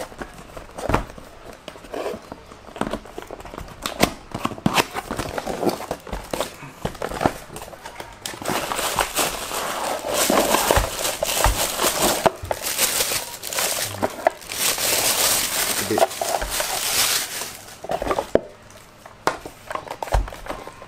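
A cardboard box being handled and opened, with scattered taps and knocks. Then a plastic bag crinkles for about ten seconds as a water pump is unwrapped from it.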